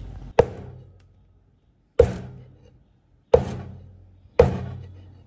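Chinese cleaver chopping pieces of porcupine puffer fish on a thick plastic cutting board: four sharp chops, each with a short ringing thud.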